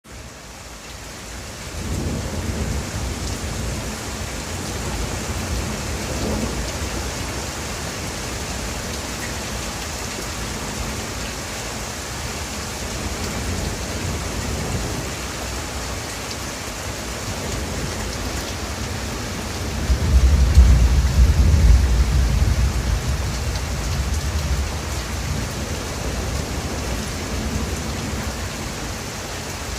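Steady rain falling, with a deep rumble underneath that swells loudly about two-thirds of the way through and fades over a few seconds.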